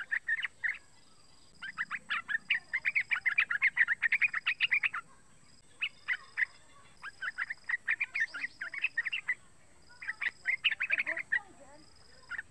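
Young yellow-vented bulbul singing in a cage: rapid, bubbling chattering phrases, four bursts broken by short pauses, the longest and loudest a few seconds in.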